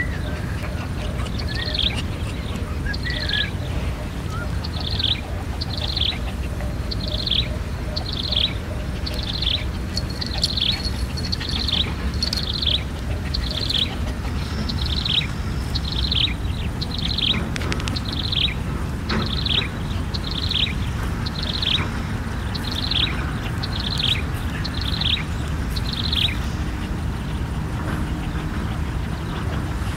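A bird calling one short, high, falling note over and over, about once a second, some twenty times, stopping a few seconds before the end. Under it runs a steady low rumble.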